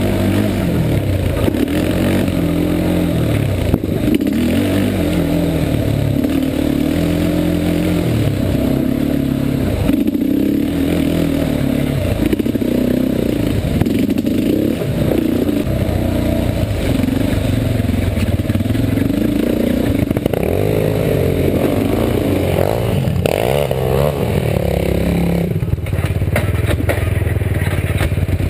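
Yamaha Warrior 350 ATV's single-cylinder four-stroke engine revving up and down over and over under hard riding. Now and then the quad knocks and clatters over the rough trail.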